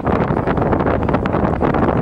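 Wind buffeting the microphone, a loud, steady rushing noise with faint scattered clicks.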